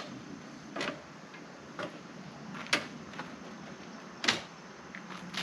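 A few separate sharp clicks or taps, roughly a second apart, the loudest two near the middle and later on.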